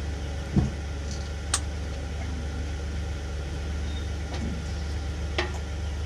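A V8 truck engine idling with a steady low hum that comes in suddenly at the start, with a few light clicks and a knock from hands working the fuel tank wiring.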